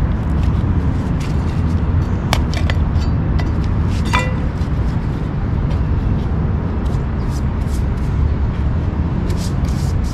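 Steady low outdoor rumble, with faint scratchy strokes of a brush working bonding agent onto a concrete curb and two short high squeaks, about two and four seconds in.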